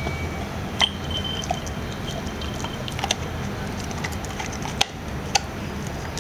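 Golden retriever gnawing at a door frame's metal track, its teeth striking the edge in a few sharp clicks, over a steady low hum.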